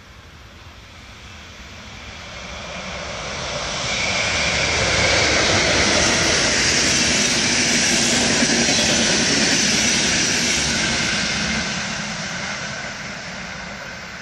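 Intercity passenger train, hauled by an electric locomotive, passing at speed: the rush of wheels on rail and the coaches swells as it nears, is loudest for several seconds as the coaches go by, then fades away.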